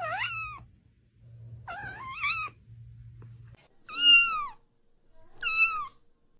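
A cat meowing four times, a second or so apart. Each meow glides in pitch, and the third is the loudest.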